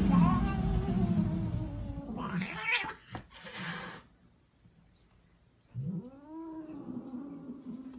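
Cat yowling: a long drawn-out call that slides down in pitch over the first two seconds, then a brief noisy burst. After a short quiet gap, a second long yowl starts near the end, rising and then sinking.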